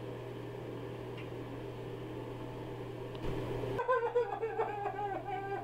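Steady low hum of small-room background noise, then about four seconds in, after a cut, music starts with held, gliding melodic tones.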